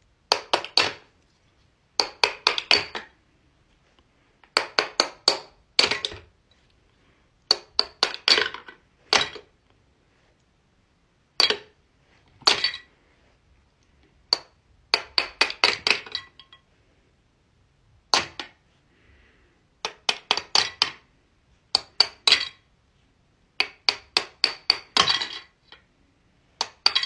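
Fidget toys clicking and clinking in quick bursts. Each burst holds several sharp clicks, and a burst comes every one to two seconds, with silence between.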